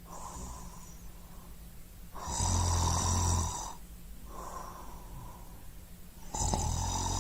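Snoring sound effect: two loud, rasping snores, starting about two seconds in and again near the end, each followed by a quieter breath out.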